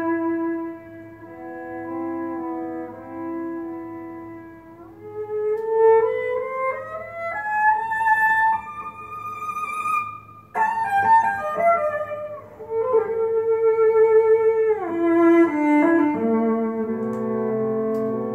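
Music played from a vinyl record through a valve hi-fi chain, a Convergent Audio Technologies SL1 preamplifier and McIntosh MC30 mono amplifier, into an Electro-Voice Regency loudspeaker. It is a slow, string-led classical piece of long held notes that slide from one pitch to the next.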